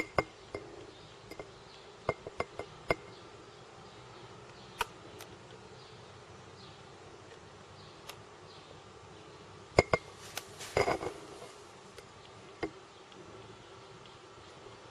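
Death's-head hawkmoth moving inside a glass jar, its wings and legs tapping and fluttering against the glass in scattered sharp clicks, with a short flurry about ten seconds in.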